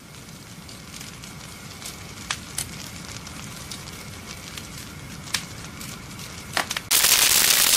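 Fire sound effect: a steady crackle and rumble of flames with scattered sharp pops, then a loud burst of hiss near the end that cuts off suddenly.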